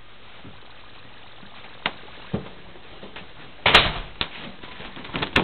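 Scattered sharp clicks and knocks of objects being handled, over a low steady hiss. The loudest cluster comes about four seconds in, and there is another near the end.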